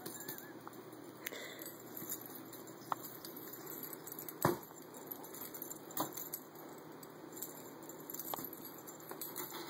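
A cat's metal collar tag jingling now and then, with scattered light taps and knocks as the cat plays with a feather wand toy, the loudest knock about halfway through.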